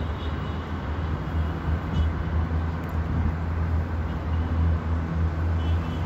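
Steady low rumble of city traffic, with a few faint, brief bird chirps about two seconds in and again near the end.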